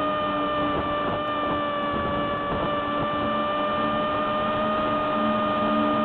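Electric motor and propeller of a small RC flying wing in flight, heard from a camera mounted on the wing: a steady whine holding one pitch with a slight dip about two seconds in, over a rush of wind noise.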